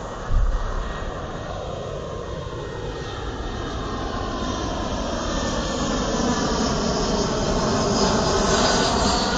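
Embraer E-Jet regional airliner on landing approach passing low overhead, its twin turbofan engines giving a steady jet rush that grows louder as it nears, with tones sliding in pitch. A brief low thump about half a second in.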